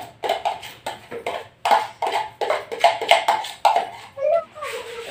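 A spoon knocking and scraping inside a food chopper's bowl to clear out minced green chillies and onions, a quick run of knocks about four a second that stops near the end.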